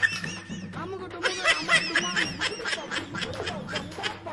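A woman's rapid, high-pitched whimpering sobs, a mock cry in a comic scene.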